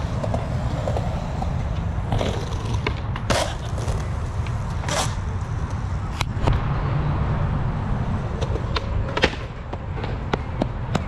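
Skateboard wheels rolling on concrete with a steady rumble, broken by several sharp clacks and slaps of a board striking the ground.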